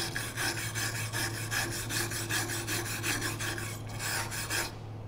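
Hand-held steel wire brush scrubbing back and forth over a fresh MIG weld bead on a steel plate, cleaning off the weld. The quick, even strokes come about five or six a second and stop shortly before the end, over a steady low hum.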